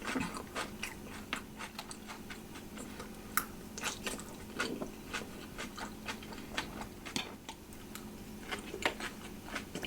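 Close-miked chewing and mouth sounds of a person eating a jerk chicken bowl: irregular wet clicks and soft crunches, several a second, over a faint steady hum.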